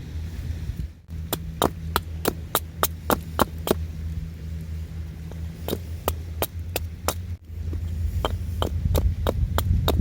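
Hammer blows in quick, even runs of about three strikes a second, over a steady low rumble.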